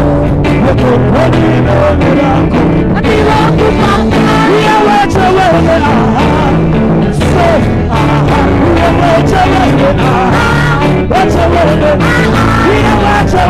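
Live gospel praise music, loud: a full band playing with a singer's voice over it.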